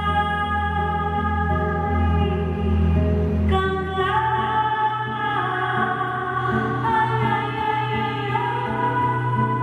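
Woman singing long, held notes of a Mexican song, accompanied by guitar. Her note changes about three and a half seconds in.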